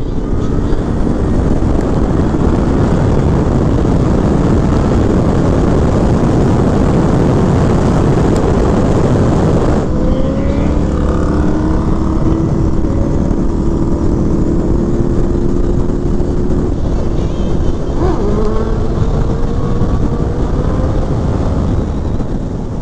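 Motorcycle riding at speed: loud wind rush on the microphone, with the engine's pitch rising several times in the second half.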